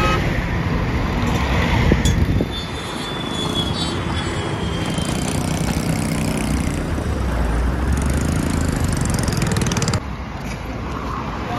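Highway traffic going by close: the engines and tyre noise of passing trucks, cars and motorcycles.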